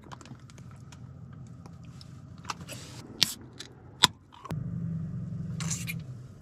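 Aluminium energy-drink can cracked open with one sharp pop about four seconds in, over a low steady truck-cab road hum. A few small clicks and rustles of snack handling come before it.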